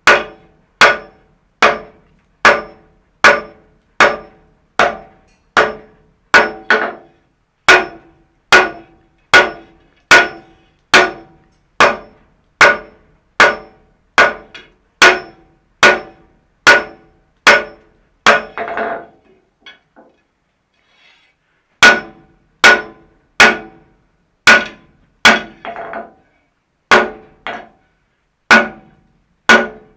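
Blacksmith's hand hammer striking a red-hot steel hinge strap on an anvil in steady blows, about one every 0.8 seconds, each with a short metallic ring. The hammering stops for about two seconds a little past the middle, then resumes at the same pace.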